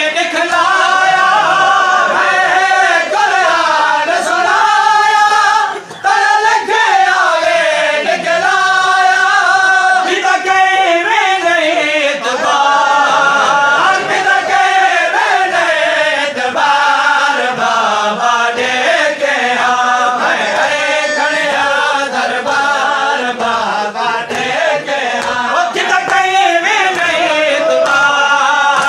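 Men's voices chanting a noha, a Shia lament sung without instruments, with the reciter's voice leading. Hands beat on chests as matam. The chanting breaks briefly about six seconds in.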